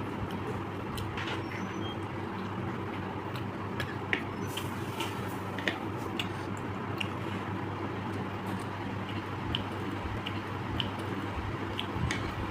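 A person eating: wet chewing and mouth sounds with scattered small clicks, over a steady low hum.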